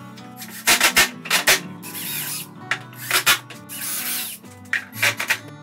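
Cordless drill driving screws through aluminum T-track into a plywood sled fence, in two short runs about two seconds in and about four seconds in, between a series of sharp clicks and knocks, over soft background music.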